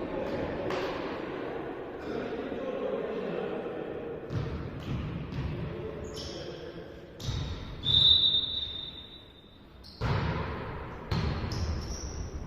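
Volleyball play in a sports hall: the ball being struck and hitting the floor in echoing thuds, with a referee's whistle blown once in a long steady blast about eight seconds in, over general hall noise.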